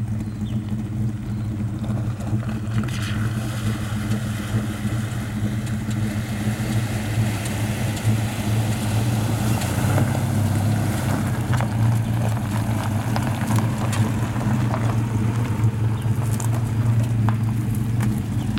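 Four-wheel-drive's engine running steadily at low revs as the vehicle crawls through a shallow, rocky river crossing. Water splashing and stones crunching under the tyres build up through the middle of the crossing.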